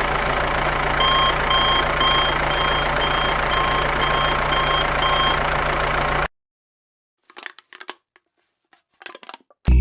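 A vehicle's reversing alarm beeping about twice a second over a steady motor hum; both cut off suddenly about six seconds in, followed by a few faint clicks.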